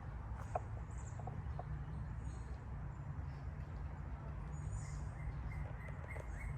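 Footsteps on a dirt trail over a steady low rumble, with a few sharp crunches or snaps in the first couple of seconds. A bird chirps faintly near the end in a short run of high notes.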